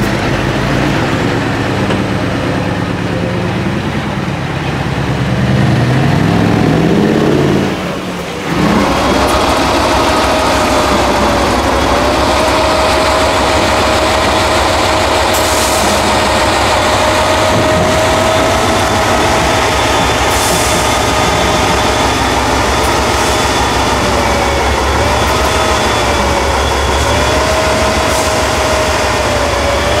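Diesel engine of a Mercedes-Benz off-road trial truck revving up and down under load. After a break about eight seconds in, a Tatra trial truck's diesel engine runs under load with a steady high whine over it that wavers slightly in pitch.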